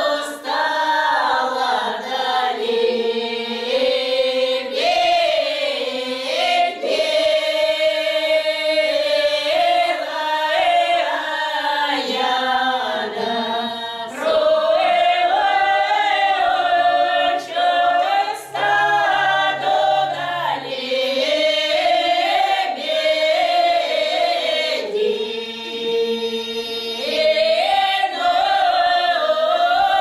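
Women's folk ensemble singing a northern Russian Pinega wedding song unaccompanied, in chorus, with long phrases broken by short pauses for breath.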